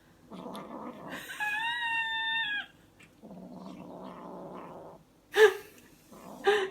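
Kitten growling: a rasping growl, then a drawn-out yowl that holds its pitch and falls at the end, then a second long growl. Two short, louder sounds follow near the end.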